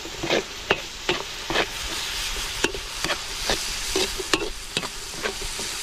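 Steel spatula scraping and clinking against a steel wok in irregular strokes, stirring chopped carrots and tomatoes that sizzle steadily in hot oil.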